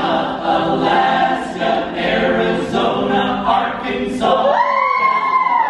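Mixed men's and women's a cappella choir singing in close harmony without instruments. About four seconds in, the voices slide up into a long held chord with a high voice on top.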